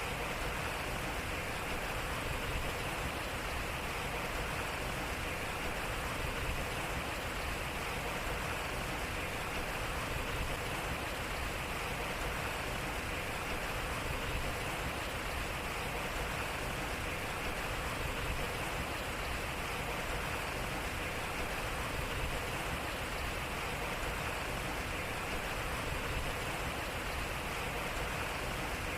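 Water running and splashing steadily at a turning water wheel.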